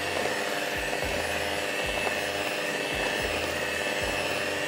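Anex electric beater running steadily, its beaters creaming butter and powdered sugar in a bowl, with a soft low throb about once a second.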